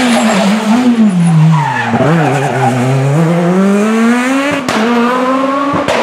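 Rally car engine passing at speed: the revs drop sharply about two seconds in as it slows for the bend, then climb steadily under hard acceleration. A gear change and a sharp crack come near the end, with a second crack just after.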